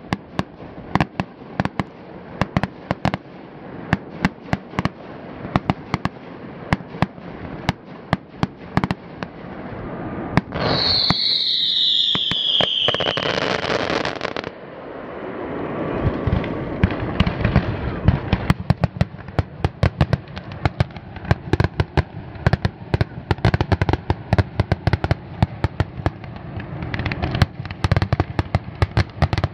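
Fireworks display going off: a steady run of sharp bangs and pops throughout. About ten seconds in, a whistling firework sounds, its whistle falling in pitch over about three seconds.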